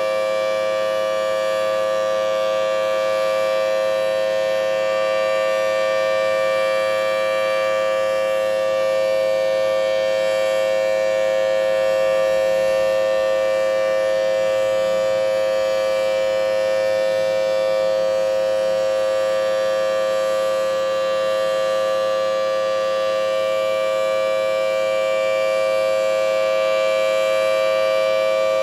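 Single-phase Thunderbolt 1000T outdoor warning siren sounding a steady, unwavering tone. Its head fails to rotate, so there is no rise and fall in loudness.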